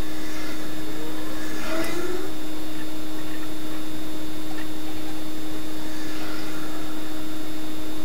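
Steady hiss with a constant hum, unchanging throughout, and a few faint short chirps about two seconds in.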